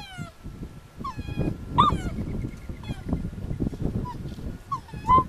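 Pit bull puppy whining and crying in a string of short, high-pitched cries that rise and fall in pitch. It is the crying of a puppy stuck in a dog wheelchair, which the owner takes for wanting out of the cart rather than pain.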